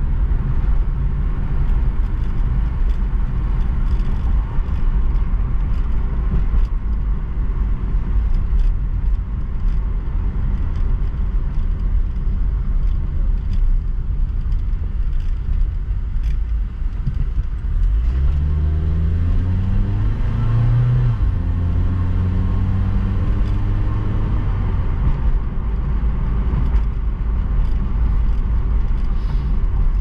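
A 2001 Honda Civic VTi's four-cylinder VTEC engine and road noise heard from inside the cabin while driving, a steady rumble. About two-thirds of the way through, the engine note rises as the car accelerates, then levels off.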